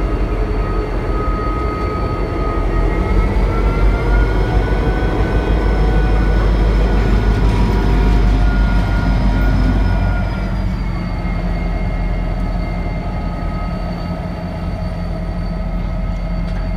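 EMD SD40-2 diesel-electric locomotives rolling slowly past at close range while shoving a train back into the yard. The diesel engines' rumble and whine rise slightly a few seconds in and ease off about ten seconds in.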